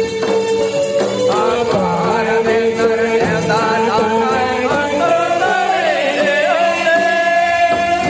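Folk-style music with singing over a wavering melody line and drum beats.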